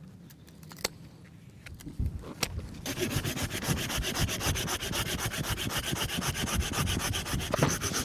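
Hand saw cutting through the wood of a wild cherry tree's trunk in fast, even strokes, starting about three seconds in after a few clicks. The trunk is being sawn back below a graft that failed, to make a fresh cut for regrafting.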